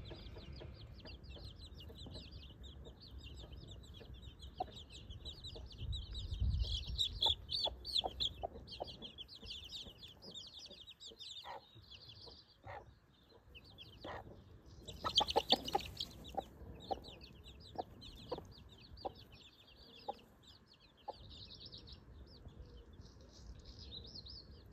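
Baby chicks peeping in rapid high chirps throughout, with the mother hen giving short low clucks among them. A louder burst of calling comes about fifteen seconds in.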